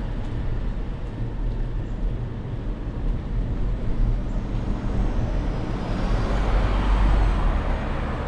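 Steady wind rumble on an action camera's microphone while cycling along a road, with a passenger van overtaking close by, its passing noise swelling about six to seven seconds in.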